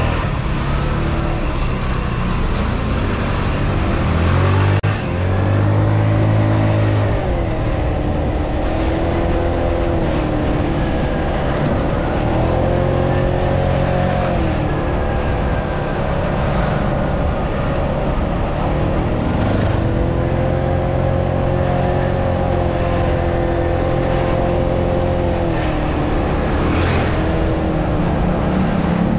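Italika D125 mini scooter's 125cc single-cylinder four-stroke engine running while riding. Its pitch rises and falls several times as the throttle is opened and eased off. A dense low rumbling noise runs underneath.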